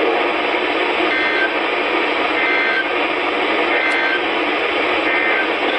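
Steady radio static hiss from a receiver tuned to a weak or silent channel, with a few faint, short two-note blips about every second and a half.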